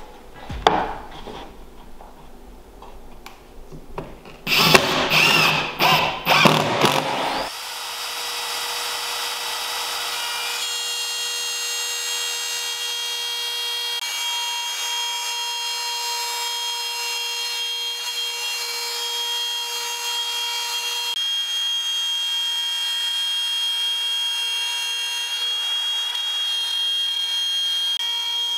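A burst of loud clattering knocks, then from about seven seconds in a Makita compact trim router runs with a steady high whine as it is guided along the edge of a wooden board.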